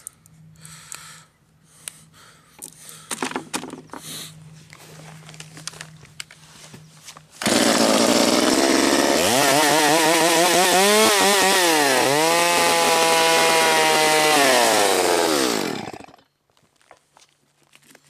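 Light handling noises of plastic tubing and fittings, then about halfway through a chainsaw starts abruptly and runs loudly for about eight seconds, cutting open a padded mailing envelope. Its pitch dips twice in the middle before the saw winds down and stops.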